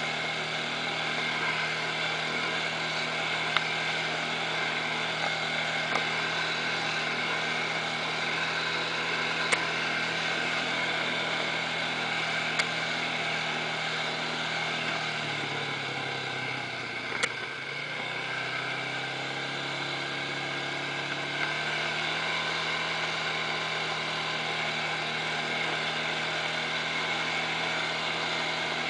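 ATV engine running steadily under way on a dirt trail; about halfway through its pitch drops as the quad slows, then climbs back up as it speeds up again. A few brief sharp knocks come through now and then.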